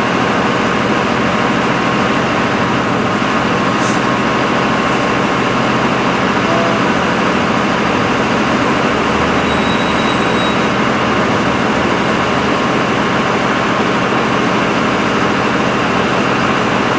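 Steady, even rushing noise with a faint steady hum in it.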